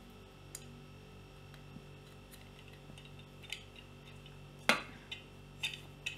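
Rubber gasket being worked by hand into the rim of a Hawkins pressure cooker's metal lid: a few light clicks and taps of the lid being handled, the sharpest a little before five seconds in.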